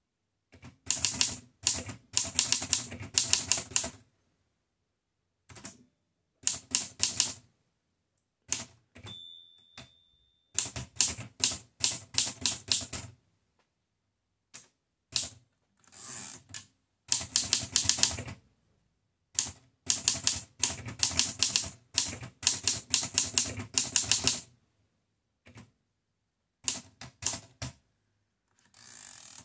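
Erika 5Tab portable manual typewriter being typed on: runs of sharp key strikes in bursts with short pauses between them. A short ringing tone sounds about nine seconds in.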